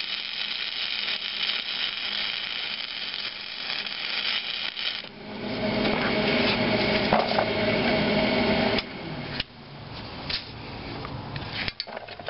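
Flux-core wire welder arc crackling and sizzling steadily as a bead is run, stopping about five seconds in. A louder hum with steady tones follows for a few seconds, then a few light clicks and knocks.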